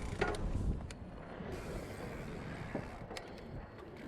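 Mountain bike riding over hard ground: tyre rumble with scattered rattling clicks, and a heavier thump just after the start.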